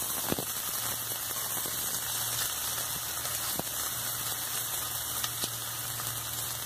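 Chopped onion sizzling in hot ghee in a kadhai: a steady frying hiss that starts abruptly as the onion goes into the fat, with a few faint pops.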